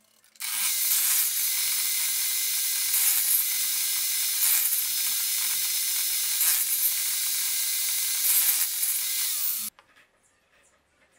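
Table saw running and cutting a plywood board fed through on a crosscut sled: a loud, hissy cutting noise over a steady motor hum. It starts abruptly about half a second in and cuts off abruptly shortly before the end.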